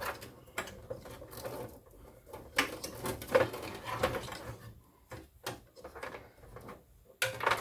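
Hands handling PC power-supply cables: irregular plastic clicks and knocks of connectors and cable sleeving being moved and fitted, with light rustling in between.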